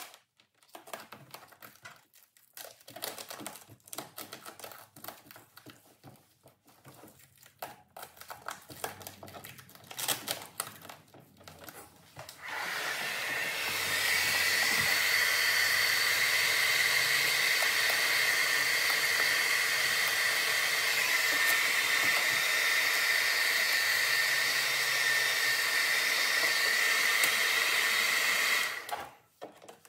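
Vinyl wrap crinkling and clicking as it is handled and pressed onto a car door trim panel. About twelve seconds in, a handheld hair dryer switches on and runs steadily with a high whine, heating the carbon fiber vinyl, then shuts off near the end.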